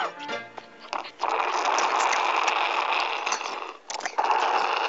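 Cartoon dog slurping a Slurpee through a straw: two long, loud, noisy slurps with a short break between them.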